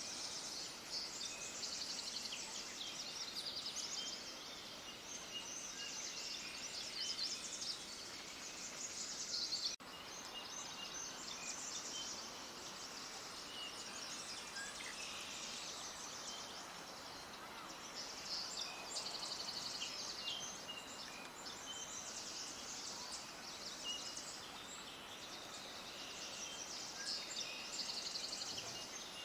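Many small birds chirping at once, a dense chorus of high, rapid chirps that swells and eases, over a faint background hiss. It breaks off for a moment about ten seconds in.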